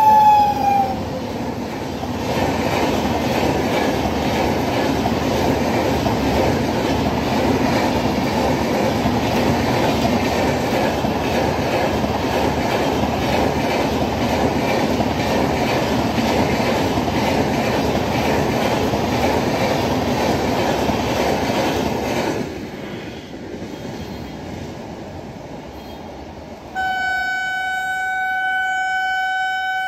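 An Indian Railways WAP-7 electric locomotive's horn dropping in pitch as it passes, then a long rake of LHB coaches running through at speed, a loud steady rumble with wheel clatter for about twenty seconds that fades as the last coach goes by. Near the end a second train horn sounds, one steady held note, from an approaching EMU local train.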